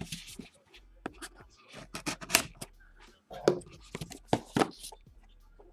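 A sealed box of trading cards being opened by hand: irregular short, sharp clicks and scratchy rustles of packaging and cardboard.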